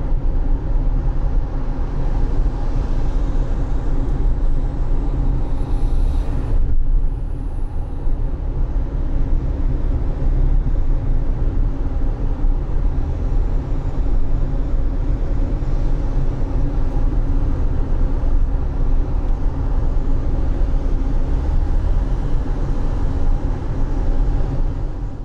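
Car driving in the rain: a steady low engine and road rumble with tyre hiss on the wet road, and a short burst of hiss about six seconds in.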